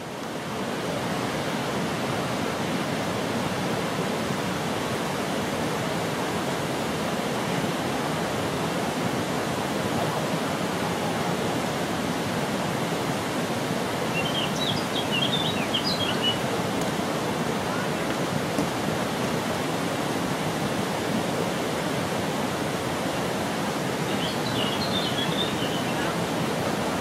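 Steady rush of cascading water, an even, unbroken wash of noise. A few brief high chirps come through around the middle and again near the end.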